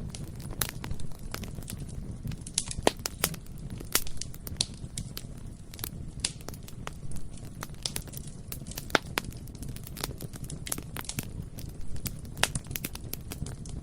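Bonfire crackling, with many sharp, irregular pops and snaps of burning wood over a steady low rumble of the fire.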